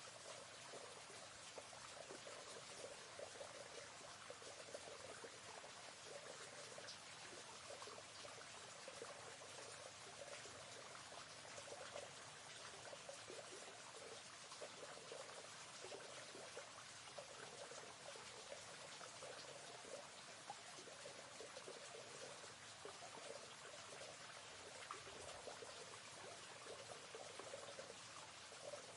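A river flowing: a steady, faint wash of running water with small gurgles and trickles throughout.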